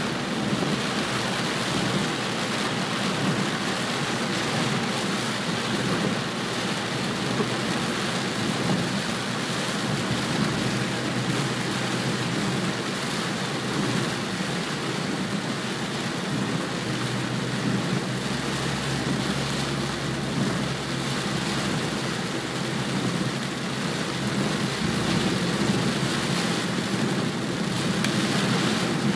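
Heavy rain beating on a moving car's windshield and roof, heard from inside the cabin, with the hiss of tyres on the wet road and a low steady hum of the car underneath.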